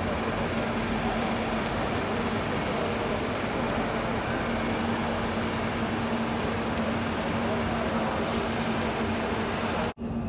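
Busy open-air crowd ambience of pilgrims circling the Kaaba: steady rushing background noise with a constant low hum and faint, indistinct voices. The sound cuts out for an instant near the end.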